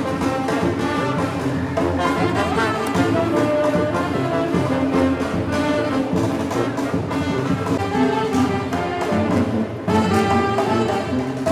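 A brass band plays a tune with horns carrying the melody, with a few sharper drum hits near the end.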